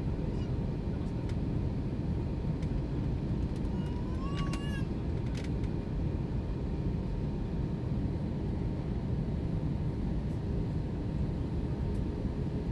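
Steady cabin noise of an Airbus A321-231 in descent, heard at a window seat: the even rumble of airflow and its IAE V2500 engines. About four seconds in, a brief high-pitched call rises and holds for under a second.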